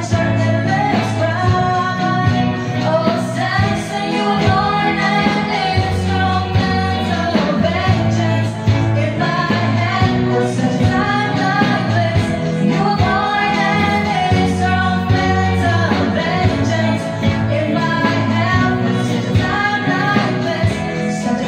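Two women singing a worship song together into microphones, with electric guitar and keyboard accompaniment and a steady bass line underneath.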